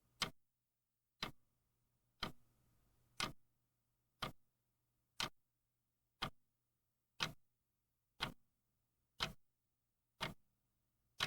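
Mechanical clock ticking steadily, one sharp tick about every second.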